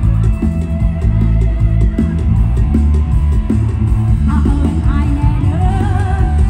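Live band music played loud through the stage PA, with a heavy bass and drum beat and electric guitar; a woman's singing voice comes in about four seconds in.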